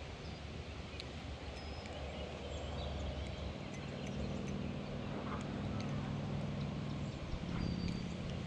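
Spinning reel being cranked during a slow retrieve: a low, steady gear whir that starts about three seconds in, breaks briefly near the end and picks up again, over outdoor background noise.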